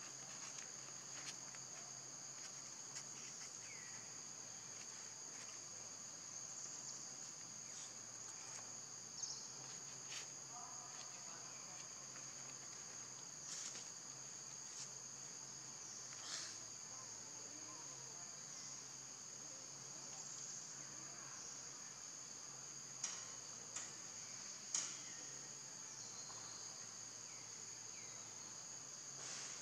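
A steady, high-pitched insect chorus in forest, holding two close pitches throughout. Scattered short clicks and ticks come over it, with three louder ones close together near the end.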